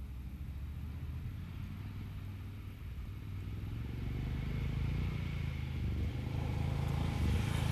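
Ducati Scrambler Desert Sled's air-cooled 803 cc L-twin engine running as the motorcycle approaches, growing steadily louder.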